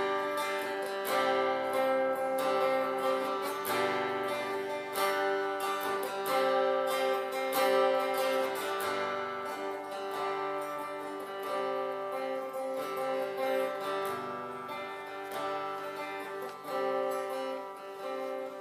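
Instrumental music: an acoustic guitar strumming chords, playing on after the last sung line of a worship song.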